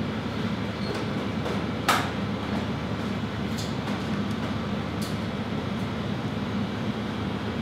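Steady hum of kitchen ventilation, with one sharp click about two seconds in and a couple of fainter ticks later.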